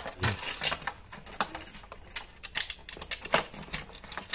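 Irregular plastic clicks and taps from a toy fishing game being handled as its toy fishing rods are fitted into their holders in the lid.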